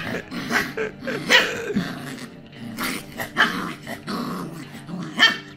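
A puppy growling in play as it mouths and bites at a hand, in a string of short growls.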